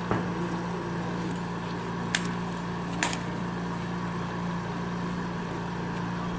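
Steady low hum, with three short sharp knocks or claps: one at the start, one about two seconds in and one about three seconds in.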